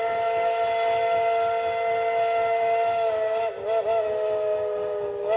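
Steam locomotive's chime whistle blowing a long, loud chord of several tones. About three and a half seconds in it is broken by two quick toots, then it carries on slightly lower and cuts off at the end.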